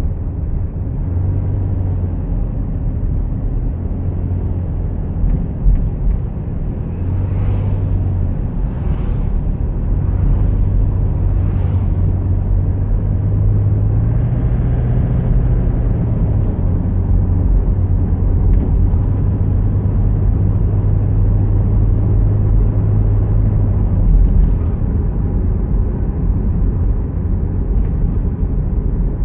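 Car driving on a road, recorded from on board: a steady low rumble of tyres and engine, with a low engine hum that fades in and out. A few brief knocks come about a third of the way through.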